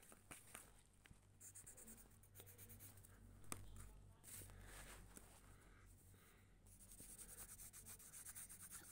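Faint scratching of a pencil on notebook paper, with a single light tap about three and a half seconds in.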